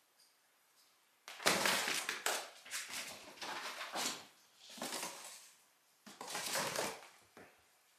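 Two cats running in a chase, their paws scrabbling and thudding on the floor and rug: a series of about six noisy bursts starting about a second in.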